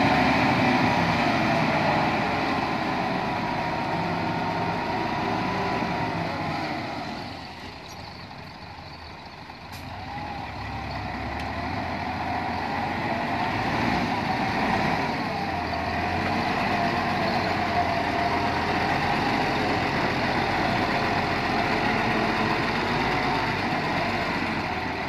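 Nissan Diesel V8 dump truck's engine running under load as the tipper body is raised, with a wavering whine over the engine note. It eases off about seven seconds in and builds up again a few seconds later.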